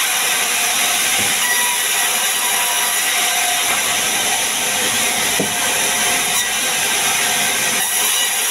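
Large stationary sawmill band saw running and cutting timber fed across its table: a loud, steady, mostly high-pitched noise with faint steady tones running through it.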